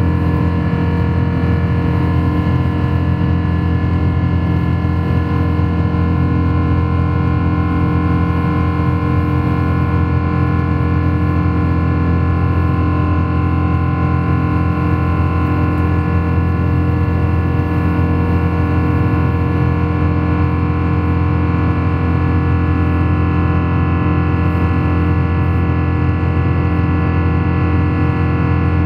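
Jet airliner's engines droning steadily inside the passenger cabin during the climb after takeoff: a loud, even hum with several fixed tones over a deep rumble.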